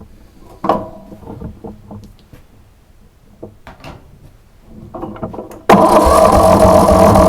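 A few light knocks and clicks, then near the end the newly fitted electric starter on a Craftsman riding mower's engine kicks in suddenly and cranks the engine over, loud and steady. The engine turns but does not fire: the battery is weak and cold.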